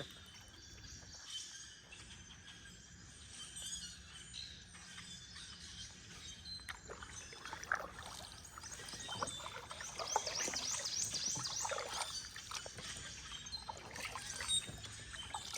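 Kayak paddle strokes dipping into and dripping off the water, with birds chirping in the background, most thickly a little past the middle.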